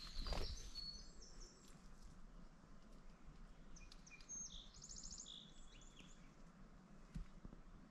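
Faint songbird calls: a few high chirps about a second in, then a short rapid trill and a few more calls around the middle. A single soft thump near the end.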